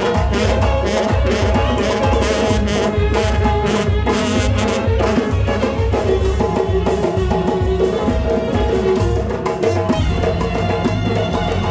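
Live band music: a large frame drum and a drum kit beat a steady rhythm under a melodic line.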